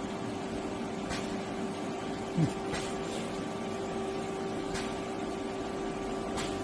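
Nakamura-Tome SC250 CNC lathe running on a test run: a steady machine hum with a constant tone, with faint short hisses every second or two. About two and a half seconds in there is a brief falling chirp, the loudest moment.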